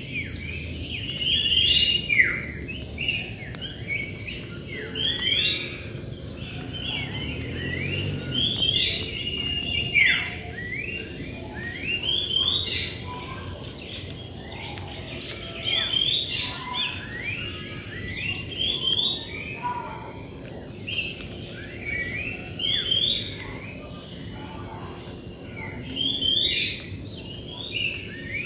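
Many wild birds chirping and singing at once, a dense run of short, quickly rising and falling notes, over a steady high insect drone.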